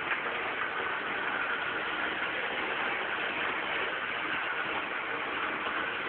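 Model railway diesel locomotive with a steady engine-like running sound and hiss, unchanging throughout.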